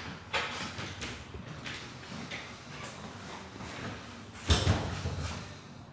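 A door or drawer being handled in a small room: a light click, then a louder thud about four and a half seconds in.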